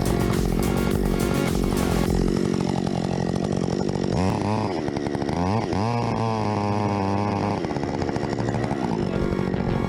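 Chainsaw engine running and revving: it climbs sharply about four seconds in, dips and climbs again, holds at high speed, then falls back to a lower speed.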